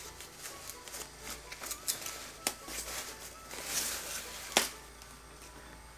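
Thin foam packing sleeve crinkling and crackling as it is pulled off by hand, with scattered sharp crackles, a rustling swell a little before four seconds in and a louder snap about four and a half seconds in.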